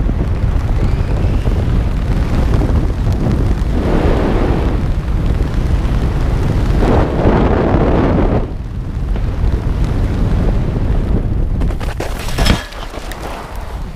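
Wind rushing and buffeting over the camera microphone of a parachutist under canopy: a steady low rumble with heavier gusts about four and seven seconds in, easing after about eight seconds. Near the end there is one sharp knock as the jumper touches down, and then the wind noise drops.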